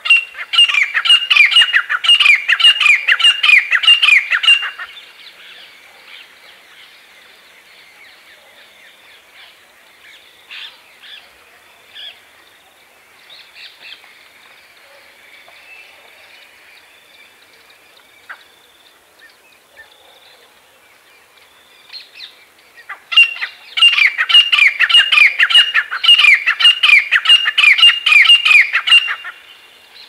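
Grey francolins calling: two loud bouts of rapidly repeated, shrill falling notes. One bout opens the clip and lasts about five seconds, the other begins about two-thirds through and lasts about six seconds, with faint scattered chirps between them.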